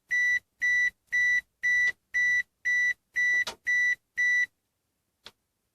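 Eagle Talon's warning chime beeping evenly, about two high-pitched beeps a second, stopping about four and a half seconds in; a faint click follows near the end.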